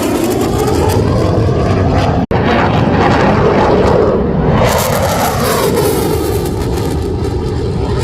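A T-50B jet trainer's single turbofan roaring loudly during a low display pass, its noise sweeping in pitch as the jet goes by. The sound cuts out for an instant about two seconds in.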